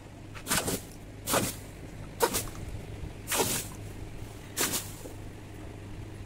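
A red-hot steel dao blade is dipped again and again into a tub of water to quench it, each dip giving a short sizzling hiss, five in all. A low steady hum runs beneath.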